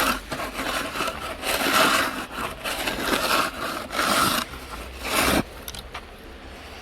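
Snow shovel scraping and pushing fluffy snow in about five strokes, stopping about five seconds in.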